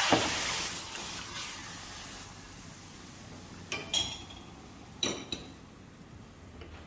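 Chicken pieces and their brine poured into a wok, a rushing splash that fades over about two seconds, followed by two short metallic clinks of a utensil or bowl against the wok about four and five seconds in.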